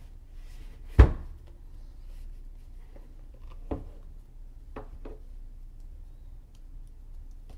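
Handling noise from a shrink-wrapped cardboard product box on a wooden desk: one sharp knock about a second in as the box is tipped over and set down. A few lighter clicks and taps follow as a folding metal multitool is picked up and handled.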